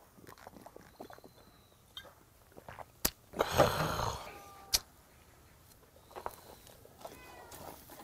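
Metal tongs click and scrape on a wire grill grate as a piece of meat is lifted off, the loudest moment about halfway through. A cat meows faintly now and then in the background.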